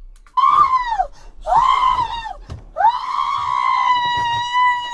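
A woman screaming three times, high-pitched: two short screams that drop in pitch at the end, then a long scream held steady.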